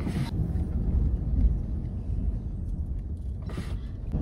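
Car driving, heard from inside the cabin: a steady low rumble of engine and road noise, with two short bursts of hiss, one right at the start and one about three and a half seconds in.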